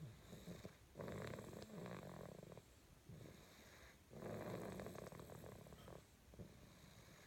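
Snoring in slow, even breaths: two long snores, one about a second in and one about four seconds in, each lasting about a second and a half, with softer breathing between.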